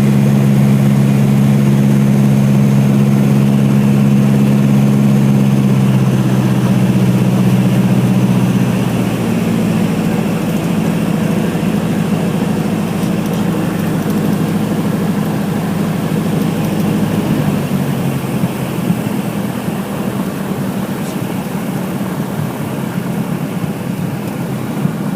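Cessna 177RG Cardinal's piston engine and propeller running steadily at low power. About nine seconds in the note shifts and gets a little quieter, and it eases off again a few seconds before the end.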